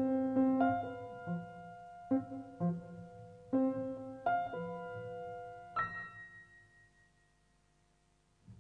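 Piano music: struck notes over a low repeating bass line, the phrase ending about six seconds in on a high note that rings on and fades away.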